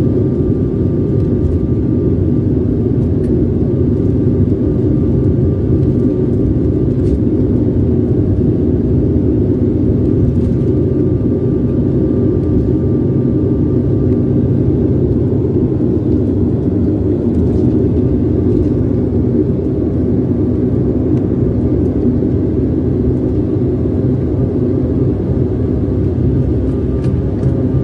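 Steady drone of an airliner's engines and cabin noise heard from inside the passenger cabin as the aircraft rolls on the ground after landing, with a few faint steady tones over the low rumble.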